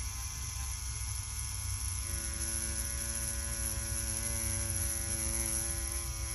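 Rotary tattoo pen running with its needle stroking over synthetic practice skin, a steady electric hum. About two seconds in, a higher-pitched set of steady tones joins the low hum.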